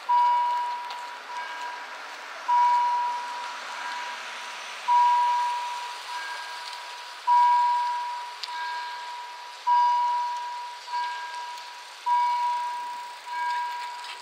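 Level-crossing warning bells ringing. A clear dinging tone is struck about every two and a half seconds and each strike dies away slowly, with fainter strikes from other bells in between.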